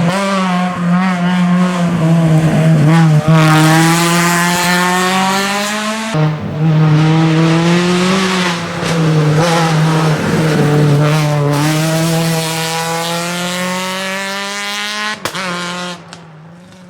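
Renault Mégane Maxi rally car's engine at full throttle, pulling hard with short breaks in the note at gear changes about six and ten seconds in. There is a sharp crack near the end, and then the engine sound fades away.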